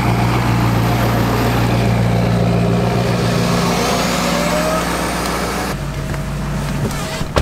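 Ford Super Duty King Ranch's Power Stroke diesel engine idling steadily, with a faint rising whine about four seconds in. The sound changes and thins out for the last second or so.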